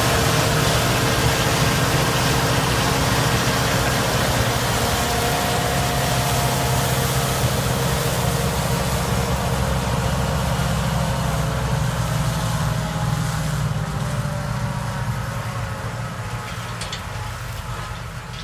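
John Deere 8820 Titan II combine running in wheat harvest: a steady drone of diesel engine and threshing machinery that grows gradually quieter over the last several seconds.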